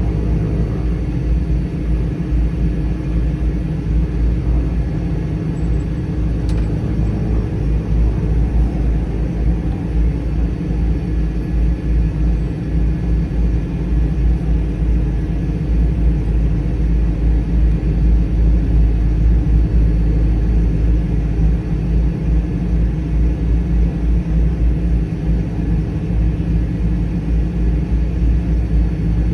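Cessna 208 Caravan's Pratt & Whitney PT6A turboprop engine and propeller running steadily, a deep, even rumble with steady tones over it.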